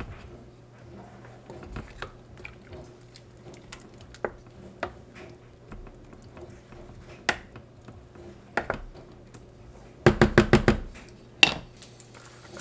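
Wooden spoon stirring crushed tomatoes in a stainless steel saucepan, with scattered soft knocks against the pot over a steady low hum. About ten seconds in comes a quick run of about eight sharp knocks, the loudest sound here.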